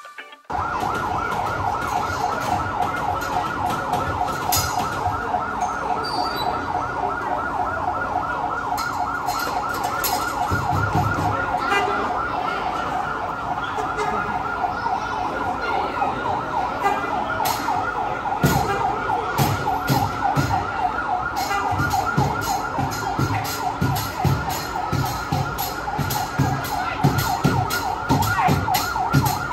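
Emergency-vehicle siren sounding continuously in a fast warble, with irregular knocks and thumps growing more frequent in the second half.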